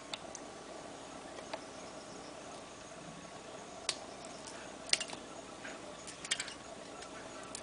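Handheld chestnut peeler being squeezed on a chestnut, with short sharp clicks and cracks as its blade bites into the hard shell, about four seconds in, louder near five seconds and again a second later, over a steady faint hum.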